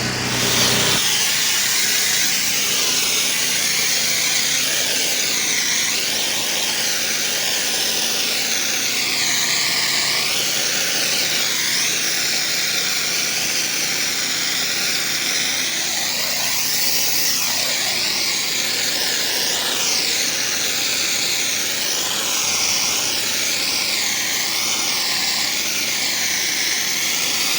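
Pressure washer spraying: a loud, steady hiss of the water jet, its tone wavering, over a faint engine hum. It starts abruptly about a second in.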